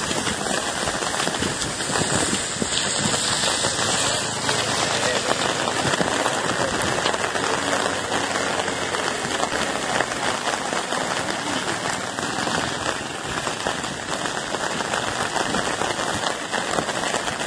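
Heavy rain falling close to the microphone, a steady, dense crackle of drops.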